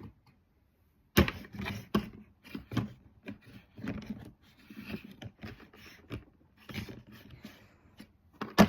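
Irregular knocks, taps and light scrapes of small toy pieces and containers being handled and set down on a table, with a sharp knock near the end.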